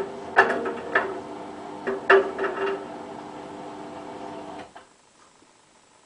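Hotpoint Ultima WT960 washing machine with an empty drum at the end of a spin: a steady motor hum with a few sharp knocks in the first two seconds or so. The hum cuts off abruptly about four and a half seconds in as the drum stops.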